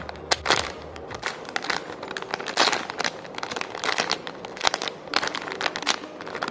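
Clear plastic packaging bag crinkling in irregular crackles as the squishy toy inside is gripped and turned in the hands.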